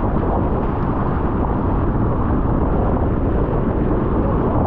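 Loud, steady wind rush buffeting the microphone, mixed with water rushing past the hulls of a Nacra 20 catamaran sailing fast.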